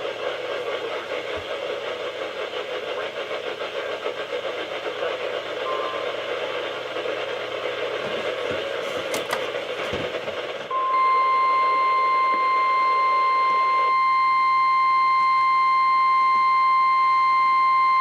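Radio static hiss from a weather radio receiver, with a few clicks. About eleven seconds in, it gives way to the steady NOAA Weather Radio 1050 Hz warning alarm tone, which holds to the end. This tone signals that an emergency alert voice message is about to follow.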